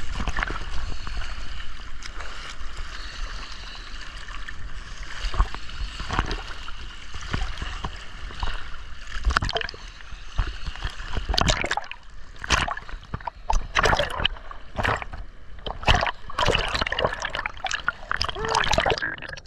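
Seawater splashing and gurgling around a diver: a steady wash with low rumble, then, from about nine seconds in, a quick run of sharp splashes and bubbling.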